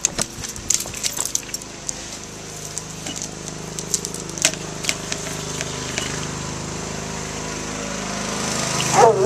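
Riding lawnmower engine running steadily, growing louder near the end, with scattered sharp clicks over it.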